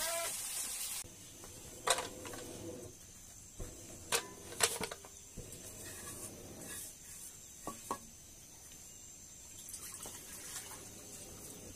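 Frying food sizzles for about a second, then water is poured from an aluminium bowl over food in a bowl and swished by hand as it is washed. There are a few sharp clinks of metal bowls along the way.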